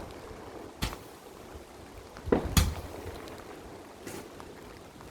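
Aerial fireworks exploding with sharp bangs: one about a second in, two in quick succession around the middle (the loudest), and a fainter one near the end, each followed by a short echo.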